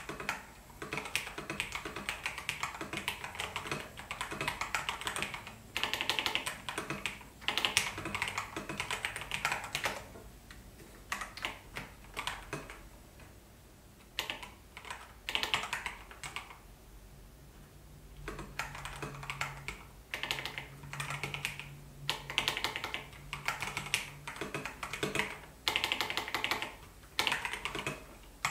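Typing on an Epomaker TH80 Pro mechanical keyboard: fast runs of keystrokes in bursts, with a couple of short pauses midway.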